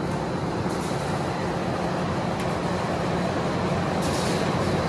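Steady mechanical hum of running workshop machinery, a low drone under an even wash of noise, with a few faint light clicks.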